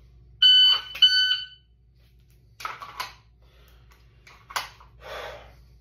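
Shot timer beeping twice, about 0.6 seconds apart: the start tone, then the par-time tone, with the clack of a pistol being drawn from the holster between them. Later come softer clicks and a rustle as the pistol is handled and put back.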